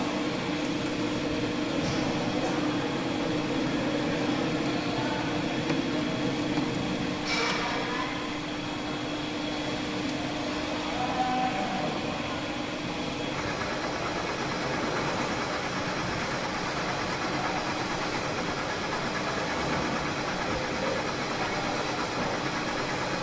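Metal lathe running during trapezoidal thread cutting, its spindle and gear train giving a steady mechanical drone with a constant tone. One sharp click comes about seven seconds in, and the sound shifts about thirteen seconds in.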